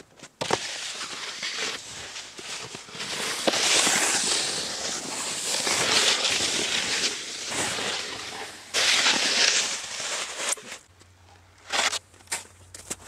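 Synthetic-decking snowskate sliding over snow: a loud scraping hiss of the plastic base on the snow in long runs, with a short break about nine seconds in. A few short crunches in the snow near the end.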